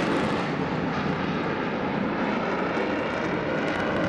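F-16 fighter jet's engine running in afterburner: a loud, steady rushing noise as the jet climbs.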